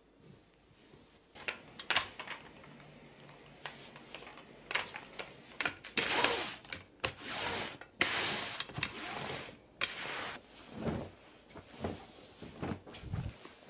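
Rustling and rubbing of fabric during sofa cleaning: several long swishing strokes of a sticky lint roller over the woven upholstery, then a few soft thumps near the end as cushion inserts are handled.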